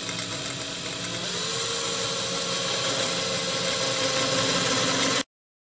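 Cordless drill running slowly with light pressure, its spear-point carbide glass bit grinding into a glass bottle under a small pool of water. The motor's whine steps up in pitch about a second in and holds steady, then cuts off suddenly near the end.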